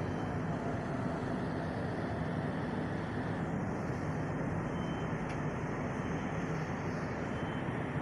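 Steady low rumble with a faint hum, like distant engine noise.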